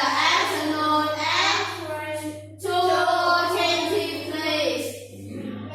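A class of children reciting an English dialogue line aloud in chorus, in two drawn-out phrases with a short break about two and a half seconds in.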